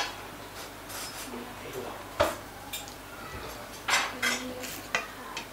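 Metal fork clinking and scraping on a ceramic plate while eating: a few sharp clicks, the loudest about two seconds in and another cluster about four seconds in.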